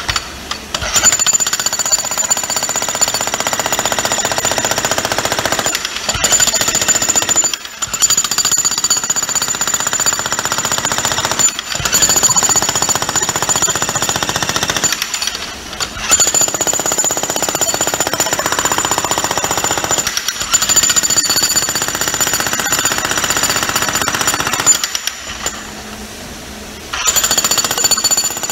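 Hercules 15-amp electric breaker hammer (66 lb, 1-1/8 in. hex) pounding in a loud, steady rapid rhythm. It stops briefly several times and goes quiet for about two seconds near the end before starting again.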